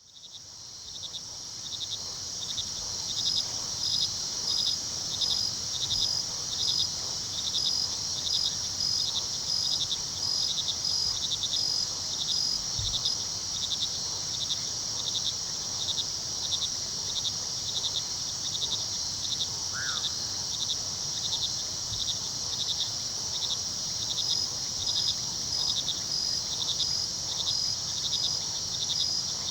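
Night chorus of crickets: a steady high trill with a second insect chirping in an even pulse, several chirps a second. It fades in over the first couple of seconds.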